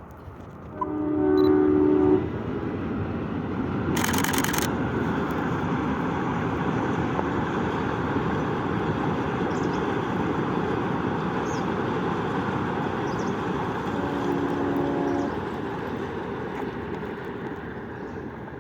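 WDM3A diesel locomotive blows its two-tone horn about a second in, then the locomotive and coaches rumble past steadily, with a brief sharp burst of noise about four seconds in. A second horn blast comes near the end of the passing, and the rumble fades as the train moves away.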